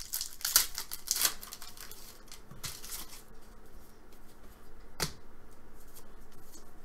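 Trading card pack wrapper torn open and crinkled by hand over the first few seconds, then the stack of cards rustling as it is handled and flipped through, with one sharp tap about five seconds in.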